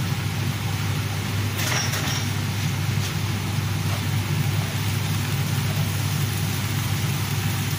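A steady low machine hum with hiss, such as a running motor or fan. Over it come faint scrapes of a wooden spoon stirring a bulgur and parsley mixture in a pan.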